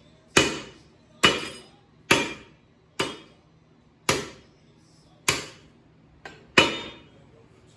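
Small hammer striking a connecting-rod cap on a small-block Chevy 350. There are seven sharp blows, about one a second, each with a brief metallic ring.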